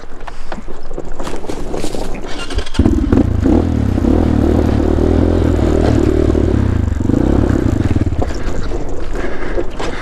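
GPX Moto FSE 250 dirt bike's 250cc single-cylinder engine cutting in suddenly about three seconds in, after a stretch of scraping noise. It runs steadily, then drops away about eight seconds in. The bike keeps dying on this steep climb at altitude and won't stay running.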